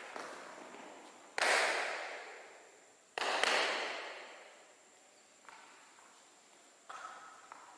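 Two sudden bangs about two seconds apart, each fading away slowly over a second or two, followed by a few faint knocks.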